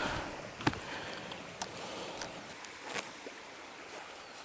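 Steady rushing of a small river's flowing water, with a few sharp clicks about a second apart.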